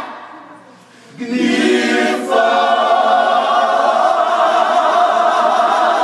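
Gospel choir singing a cappella: a phrase dies away at the start, the voices come back in about a second later and hold a long chord.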